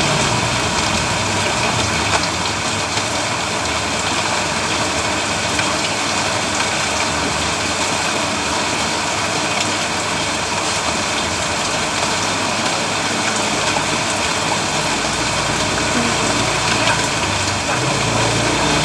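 Heavy rain falling steadily on a road, a dense even hiss. A low engine hum is also heard at the start and again near the end.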